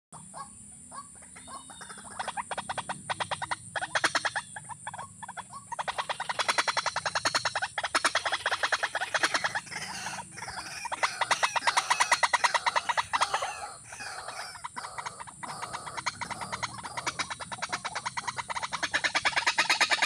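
Waterhen calling: long runs of rapid, repeated croaking notes that grow much louder from about two seconds in, over a steady high drone.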